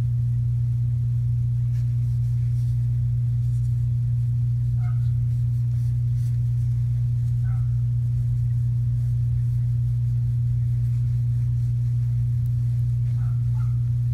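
A steady low hum throughout, with a few faint short squeaks from the kittens about five seconds in, near the middle and near the end.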